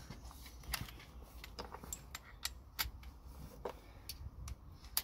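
Scattered light clicks and taps at irregular intervals, from hand tools being handled: a socket, small swivel extension and ratchet being picked up and fitted together.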